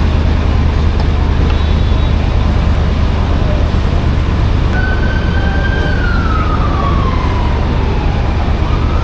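Petrol pump running while fuel flows through the nozzle into a motorcycle tank, giving a steady low hum. About five seconds in, a siren wails, falling slowly in pitch and then rising again near the end.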